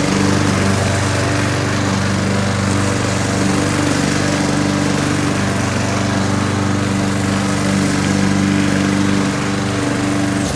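Craftsman gas walk-behind lawn mower running steadily under load while cutting grass, its single-cylinder engine holding a constant speed.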